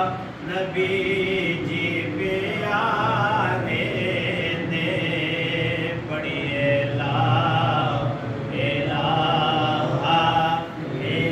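Male devotional chanting in long, drawn-out melodic phrases with short breaks between them.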